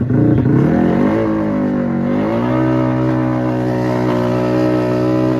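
Drag-racing motorcycle engine revving: its pitch climbs over the first two seconds or so, then holds steady at high revs.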